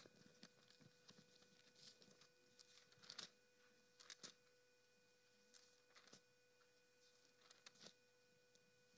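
Near silence: room tone with a faint steady electrical tone, and a few soft scattered rustles and taps of Bible pages being turned.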